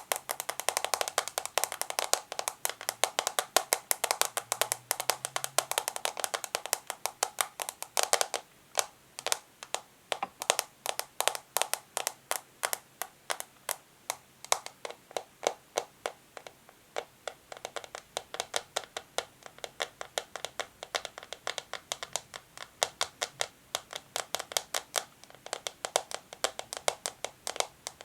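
Natural fingernails tapping on a small plastic lens container in a thin plastic bag. For about the first eight seconds the taps come fast and run together, with some scratching and crinkling of the plastic. Then they become separate, crisp taps a few per second, quickening again near the end.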